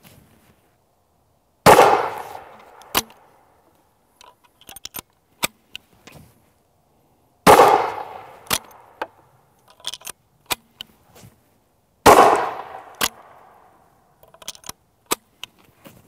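Three shots from a Greener GP 12-gauge single-shot shotgun firing Aguila mini shells, about five seconds apart, each ringing out briefly. Between the shots come sharp clicks and clacks as the Martini-style lever is worked to eject the empty hull and a fresh shell is loaded.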